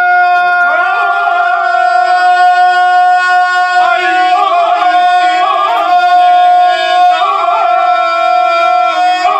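Ganga: a few men singing unaccompanied in full voice, one holding a long steady note while the others weave short wavering, ornamented phrases around it.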